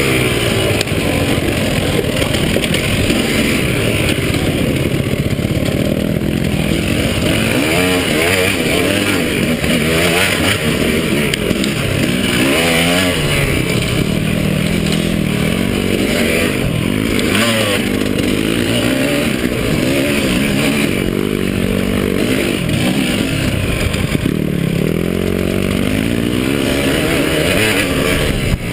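KTM 300 two-stroke dirt bike engine revving up and down over and over as it is ridden hard.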